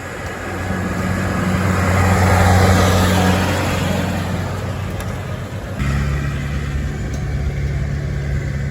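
Farm tractor engines running steadily. The sound grows louder around two to three seconds in, and the engine note shifts abruptly to a lower pitch near six seconds.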